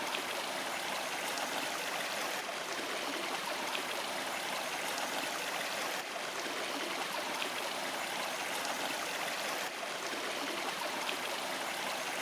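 Running stream water: a steady rush with no tone or rhythm, dipping slightly in level about six and ten seconds in.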